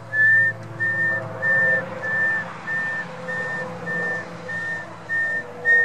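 Staged sound of a low loader truck reversing: a steady high reversing-alarm beep repeating about one and a half times a second over a low engine drone.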